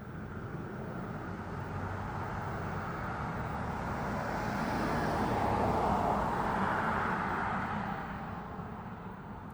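Qantas jet airliner flying past, its engine noise swelling to a peak about six seconds in and then fading away.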